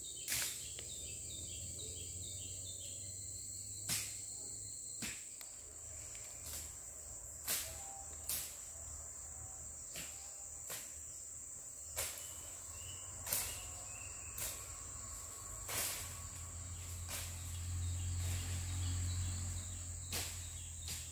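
Steady high-pitched drone of rainforest insects, broken every second or two by sharp crackles and snaps of footsteps through dry leaf litter and twigs.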